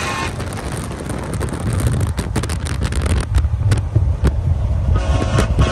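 Pickup truck driving at highway speed, heard from inside the cab: a steady low road-and-engine rumble, with wind buffeting the microphone and crackling against it in the middle. A pitched tone comes in near the end.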